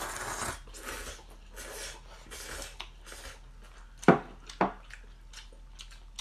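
A person slurping noodles, loudest at the start, then chewing. Two sharp knocks come a little after four seconds in, as a bowl is set down on a wooden table.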